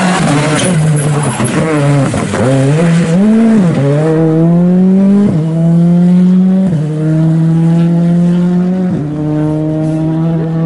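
Citroën C3 R5 rally car's turbocharged four-cylinder engine passing close on a wet road, its pitch dipping and rising over the first few seconds with a hiss of tyres on water at the start. It then accelerates away, the note climbing through three upshifts, each a short break before the pitch rises again.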